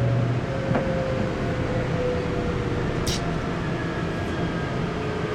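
Cabin noise of a moving AREX airport-line commuter train: steady running and rail noise with a faint steady whine, a low hum dropping out just after the start, and a short high hiss about three seconds in.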